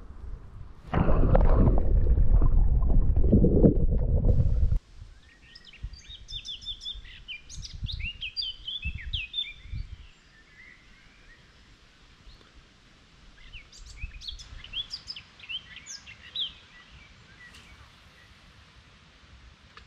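A loud rushing rumble for about four seconds, then small birds chirping and twittering in two spells, with a few low thumps in between.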